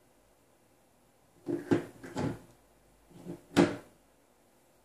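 Quiet at first, then four short knocks and clunks of handling at a workbench, the last and loudest near the end.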